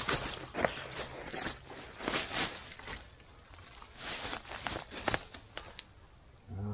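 Irregular rustling, cracking and snapping of wood and forest-floor litter being handled or trodden on, in clusters, with a quieter pause about three seconds in and again near the end.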